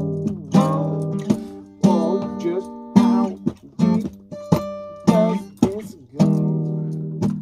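Acoustic guitar played freely, strummed and plucked in uneven strokes, each chord ringing and fading before the next.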